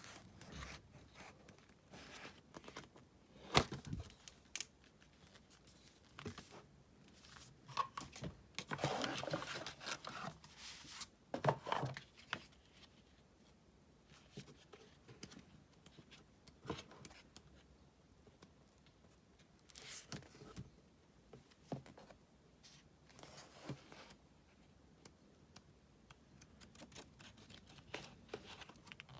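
Packaging being opened and handled: paper or plastic wrap tearing and crinkling in short stretches, the longest about nine seconds in, with scattered taps and clicks of items being picked up and set down.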